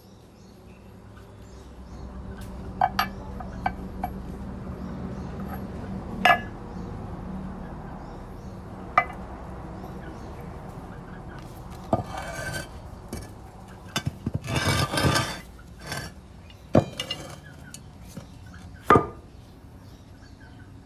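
Brass and steel lathe parts being handled against a cast-iron casting: a series of sharp metallic clinks and knocks, with a longer rattling cluster about two-thirds of the way through.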